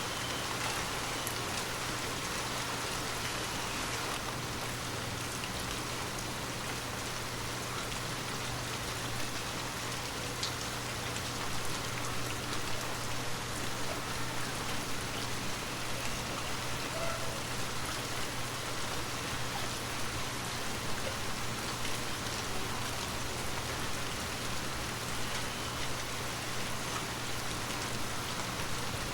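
Water droplets falling on glass in a dense, steady patter of small taps, like light rain on a window, over a low steady hum.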